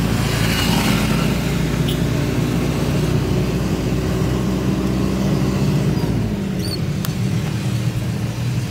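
Taxi's engine running, heard from inside the cabin; its note drops about six seconds in as the cab slows to a stop, and a single click follows about a second later.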